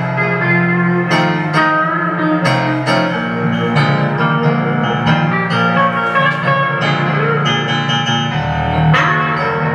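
Archtop hollow-body electric guitar playing a lead part over backing music with sustained low bass notes, in an instrumental passage of a blues-rock cover song.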